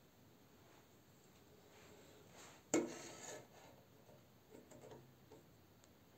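A small plastic toy figurine set down on a wood-grain tabletop with a sharp tap about three seconds in, followed by a short scraping rub and a few lighter taps and rubs as it is handled on the surface.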